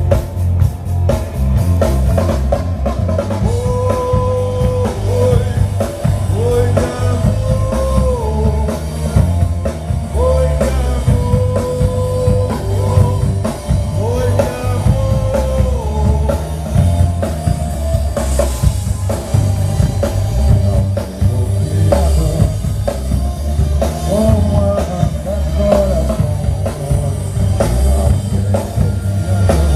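Live manguebeat rock band playing: drum kit and heavy bass driving the rhythm, with guitar and a singing voice, long held notes through the middle.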